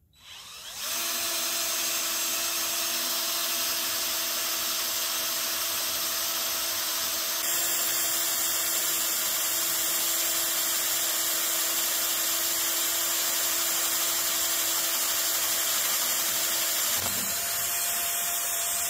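DeWalt 20V cordless drill boring a 3/16-inch hole through a steel frame rail, spinning up just after the start and then running steadily with a constant motor whine as the bit cuts, its tone shifting slightly twice.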